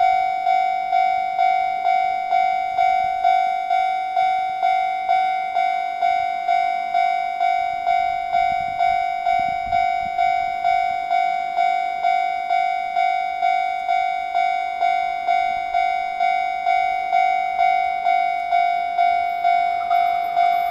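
Japanese railway level-crossing warning bell ringing steadily at about two strikes a second, the crossing's signal that a train is coming. Near the end, the approaching train begins to be heard.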